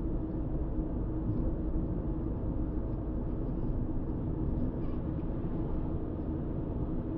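Steady engine and road noise of a car cruising at speed, heard from inside the car, with a constant low hum and no sudden events.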